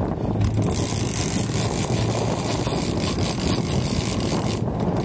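Boat's engine running steadily, with wind and water noise over it.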